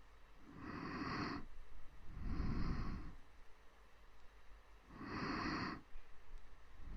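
A person breathing slowly and softly close to the microphone for ASMR: four separate breath sounds, each about a second long, the last one starting at the very end.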